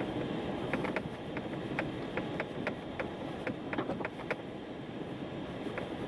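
A car driving on a snow-packed road, heard from inside the cabin: a steady low rumble of tyres and engine. Through the middle of it comes a run of sharp, irregular clicks.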